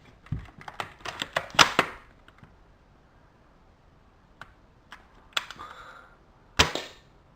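Spring-powered L96 Warrior airsoft sniper rifle being shot and its bolt worked: a quick run of sharp clicks and clacks in the first two seconds, a few single clicks, then one louder sharp shot near the end.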